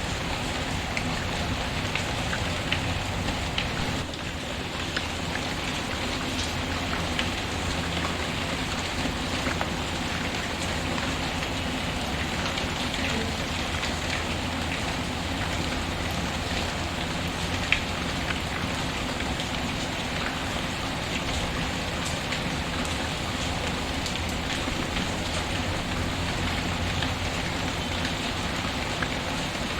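Steady rain falling, mixed with the faint scattered crackle and pops of a wood fire, one pop sharper a little past the middle.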